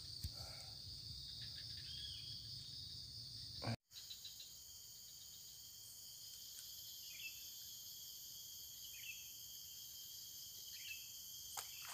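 Steady high-pitched chorus of insects droning without a break, with a few short falling chirps later on. The sound drops out for an instant about four seconds in.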